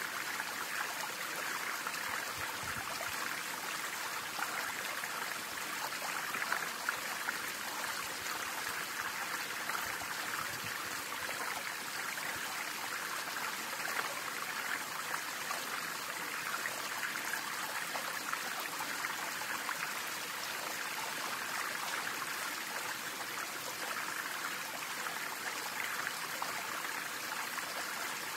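Stream water flowing steadily in an even, unbroken rush.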